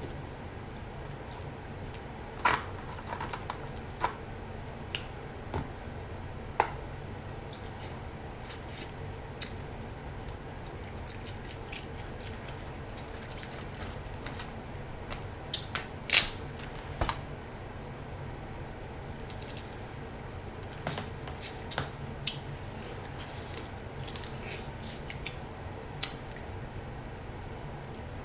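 Snow crab shells cracking and snapping as the legs are broken apart by hand, with wet squishing and chewing of the crab meat. The cracks come in scattered sharp clicks, the loudest about halfway through, over a low steady hum.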